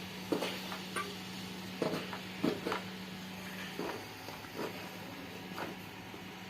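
Scattered light knocks and clicks, as of something being handled, over a steady low hum; the knocks thin out after about four seconds.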